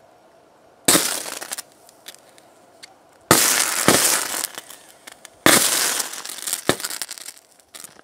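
High-current electric arc from a copper rod wired to four 12 V lead-acid batteries in series (48 V) shorting through a laptop's metal casing: three loud crackling, sputtering bursts, each starting suddenly and lasting about a second, about two seconds apart, with a brief smaller burst near the end.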